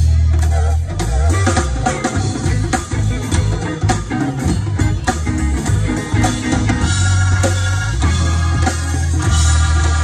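Live band playing loud dance music through a PA: a steady drum-kit beat over heavy bass, with held chords coming in toward the end.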